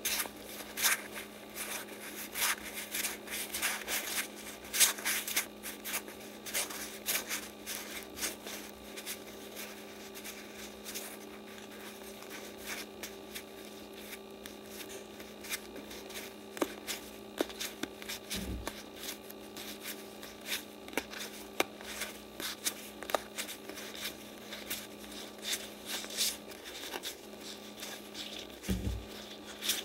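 Stack of Yu-Gi-Oh trading cards being flipped through by hand, the cards sliding and snapping against each other in many quick rustles and clicks over a steady low hum. Twice in the second half comes a short dull thump.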